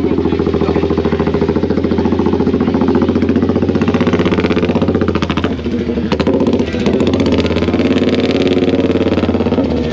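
Red MV Agusta motorcycle's engine running loudly, with a rapid, even exhaust beat that dips briefly near the middle.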